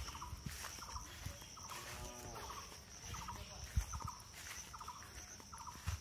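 Outdoor rural ambience: a steady high-pitched insect drone and a short pulsed call repeating about every three-quarters of a second. A brief warbling animal call comes about two seconds in, with a few low thumps.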